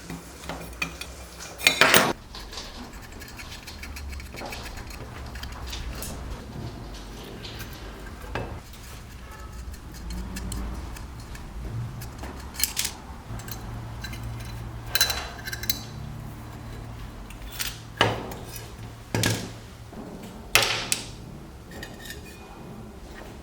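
Small metal parts of an old electric iron clinking and knocking as they are handled and set down, a few sharp clanks standing out, over a low steady hum.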